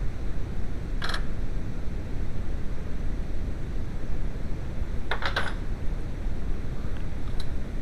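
A few sharp clicks over a steady low rumble: one about a second in and a quick cluster of three or four around five seconds in, typical of tools and parts being handled while the engine is being worked on.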